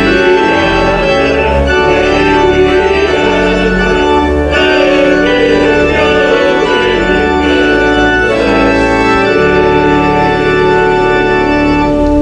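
Church organ playing sustained hymn chords while a small group of voices sings the hymn's final line, ending on a long held chord.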